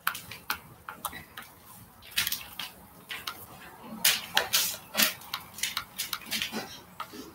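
Irregular sharp clicks, taps and short rustling noises, scattered and uneven, busiest from about two seconds in.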